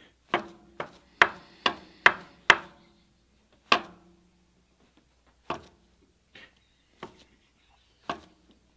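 Hammer driving nails into wooden floorboards: six quick blows in the first two and a half seconds, another a second later, then four lighter, spaced-out strikes, each with a short ring.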